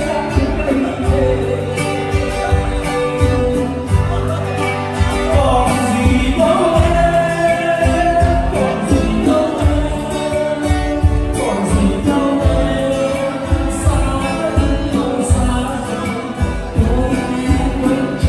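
Live band music with a male singer over a loud sound system, with a steady beat.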